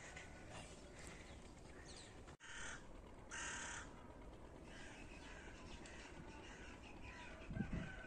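A crow cawing twice, two short harsh caws close together a few seconds in, faint against a quiet rural background.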